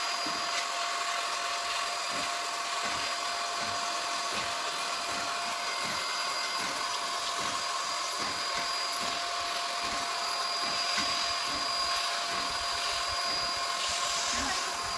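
Airless paint sprayer running: a steady motor whine with a hiss of spray.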